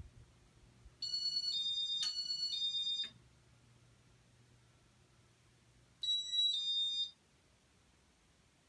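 Casablanca W-32 Inteli-Touch ceiling fan electronics beeping, alternating between two high pitches: four tones about a second in, then two more about six seconds in. Under the beeps runs a faint low hum from the fan motor.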